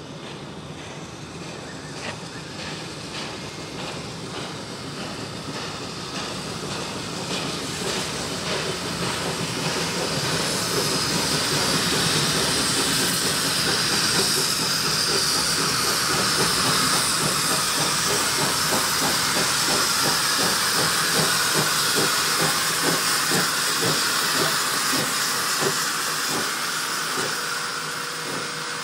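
NSWGR 59 class steam locomotive 5917 approaching and drawing past at close range: a steady hiss of steam with a regular beat underneath, growing louder for the first dozen seconds and easing a little near the end.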